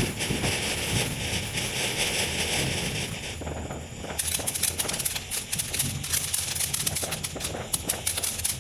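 Consumer ground firework going off: a steady hiss, then dense rapid crackling from about four seconds in.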